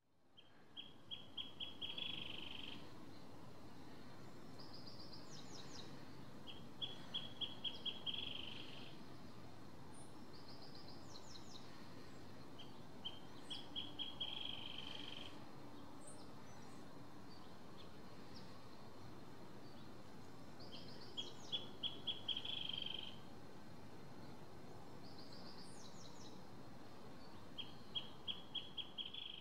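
A songbird sings the same phrase five times, every six to eight seconds: a quick run of even notes ending in a buzzy trill. A few higher, falling notes come in between the phrases, over a steady low background hiss.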